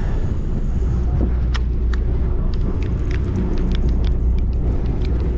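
Steady low rumble of the fishing boat's engine running, with scattered light clicks from about a second and a half in as the angler handles and cranks his conventional reel.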